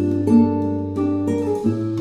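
Background music: a guitar instrumental of plucked notes over a held low bass note, the melody changing about every half second.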